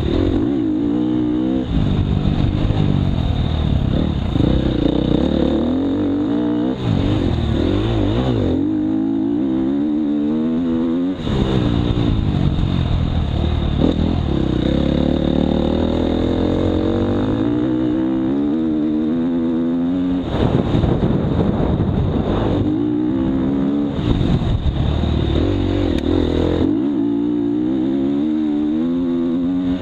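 Dirt bike engine under hard riding, heard from the rider's helmet: it revs up again and again, climbing in pitch through each gear and dropping back every few seconds at shifts and when the throttle is eased off.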